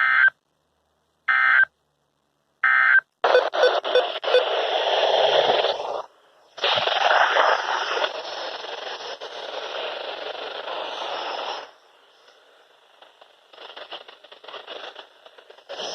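NOAA Weather Radio receiver playing three short warbling bursts of SAME digital data, a little over a second apart: the end-of-message code that closes the weekly test. Loud radio static with a few clicks follows, cutting out briefly about six seconds in and dropping to faint crackle near the end.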